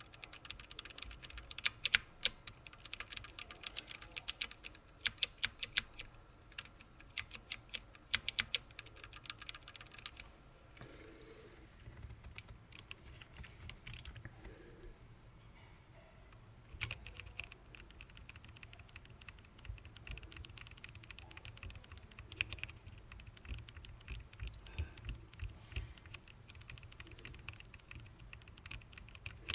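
Mechanical keyboard keycaps on Alps and Cherry MX Black switches being wobbled and pressed, making rattling plastic clicks. A run of sharp, loud clicks fills the first ten seconds. After a quieter pause, a quicker, softer rattle of clicks starts about seventeen seconds in.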